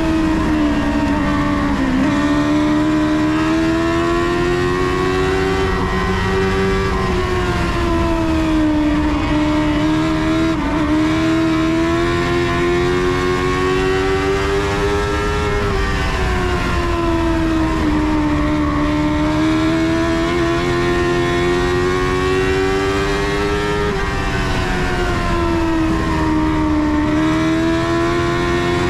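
Dwarf race car's engine heard from inside the cockpit at racing speed, its pitch climbing along each straight and dropping for each turn, in a cycle that repeats about every eight to nine seconds, lap after lap.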